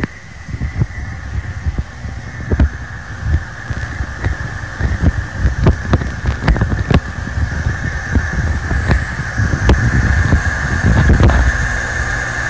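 Harsh distorted noise: a steady high whine over a low rumble, with dense irregular crackles and clicks, growing louder.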